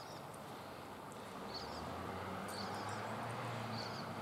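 A small bird chirping, four short calls, over a steady background rumble that grows louder about a second in.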